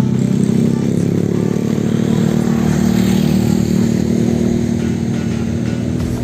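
Motorcycle engine running steadily, close up.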